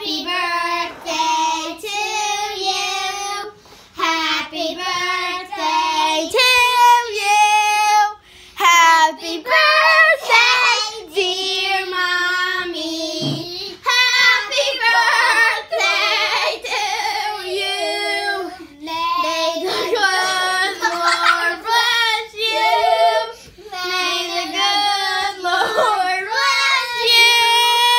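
A young child singing in a high voice, with long held notes and short breaks for breath.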